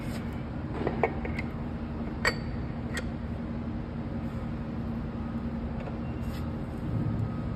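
A few sharp metal clinks, about one, two and three seconds in, as the steel parts of a rear main seal installer tool are handled and fitted onto the crankshaft of a Mack MP7 diesel engine, over a steady low hum.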